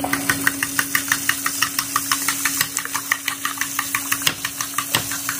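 Fork whisking raw eggs in a metal bowl: quick, even taps of the fork against the bowl, about five a second, over a steady hum.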